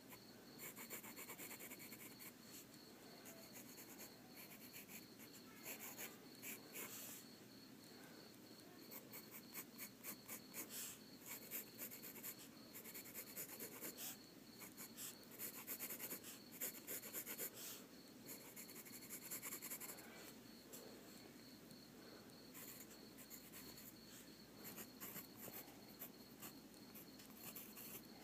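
Pen or pencil scratching on paper in bursts of short, quick drawing strokes with brief pauses between them, over a faint steady high-pitched pulsing tone.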